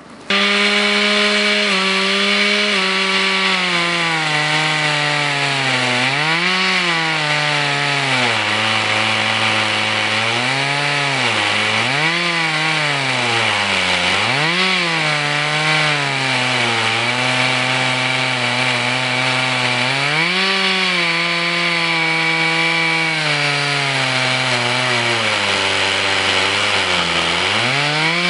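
Two-stroke chainsaw running at high speed in a homemade chainsaw mill, sawing wood. Its engine note dips and recovers again and again as the chain meets the load of the cut.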